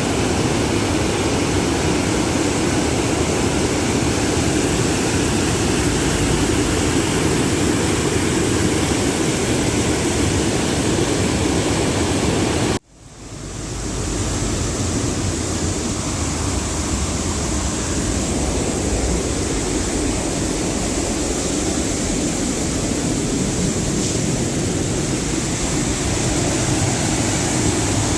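Waterfall: a loud, steady rush of falling water. A little before halfway the sound cuts out abruptly and fades back up over about a second.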